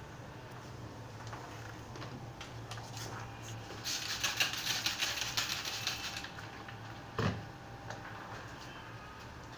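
A burst of rapid crackling and rustling clicks for about two seconds, starting about four seconds in, followed by a single dull thump, over a low steady hum.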